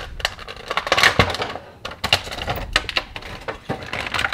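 Hands handling and opening a small plastic toy package: a quick run of plastic clicks, clinks and rustles.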